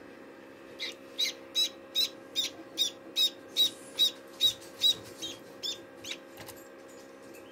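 Newly hatched duckling peeping: a string of about fourteen high, even peeps at roughly two or three a second, growing fainter after about five seconds. Under them is the steady low hum of a small egg incubator.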